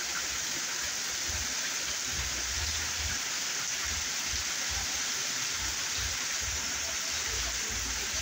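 Heavy rain pouring down steadily onto roofs and a flooded street, with muddy runoff water streaming along the road. Irregular low rumbles come and go underneath.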